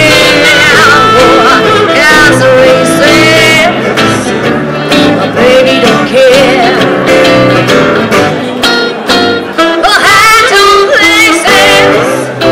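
Small live band playing a swing tune: acoustic guitar, electric guitars and saxophone, with a woman's voice singing along.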